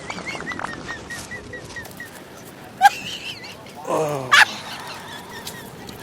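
A fart sound effect: a short, pitched, buzzy blurt that slides sharply downward about four seconds in. Faint high chirps repeat in the first two seconds.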